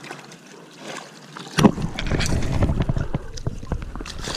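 Wire-mesh fish basket being hauled up out of the water beside a kayak, with knocks and clicks of handling and dripping water. A sharp knock comes about a second and a half in, and from then on a low wind rumble sits on the microphone.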